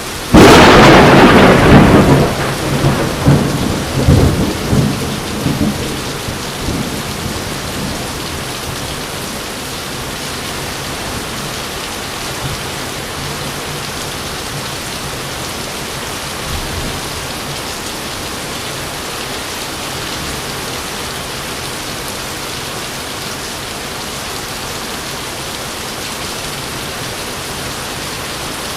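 A sudden loud thunderclap cracks a moment in, then rumbles in rolling pulses that fade over about seven seconds, over steady rain falling on surfaces.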